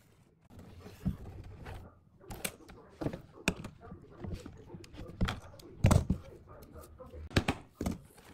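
Handling noise of hand tools on a wooden board: a metal strip, nail and pliers knocking and clicking against the wood, about eight sharp taps at uneven intervals with light scraping between them. The loudest knock comes about two-thirds of the way through.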